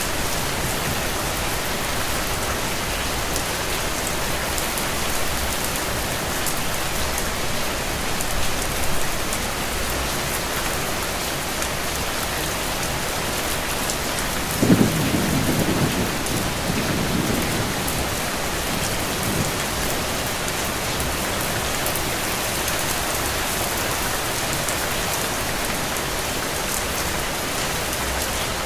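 Steady rain falling, with a low roll of thunder about halfway through that rumbles on for a few seconds.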